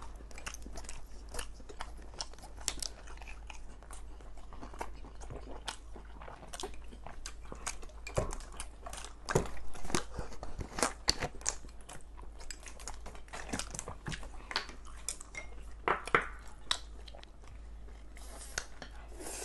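Close-miked chewing and biting: irregular wet mouth clicks and small crunches of food being eaten, a few louder crunches now and then.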